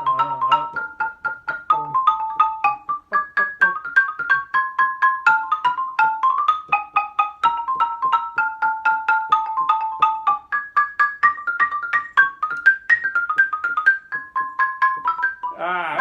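Xylophone struck with mallets, playing a ragtime passage as a fast, even stream of single notes that step up and down in a repeating pattern.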